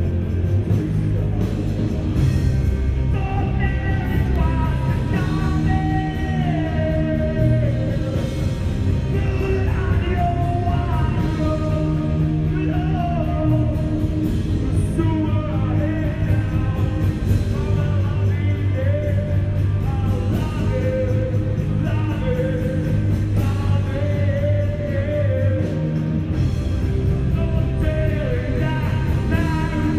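Rock band playing live: a sung lead vocal line over electric guitars, bass and drums.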